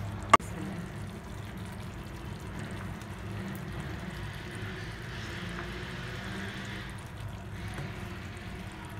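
Tomato-onion masala simmering in oil in a steel pot with a soft, steady sizzle as kingfish steaks are laid into it; a single sharp tap sounds just after the start.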